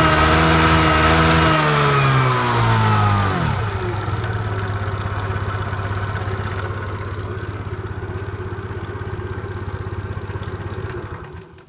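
Suzuki Let's 4 Palette scooter's small four-stroke single engine held at raised revs, then falling back to idle over about two seconds and idling steadily, before cutting off near the end. The engine is one that the seller lists as having an abnormal noise while still running fine.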